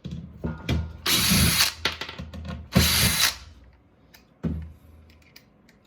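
Porter Cable 20-volt brushless cordless drill backing screws out of a sheet-metal and plastic appliance casing, in two short bursts about a second apart, with small clicks and knocks of the screws and parts between them.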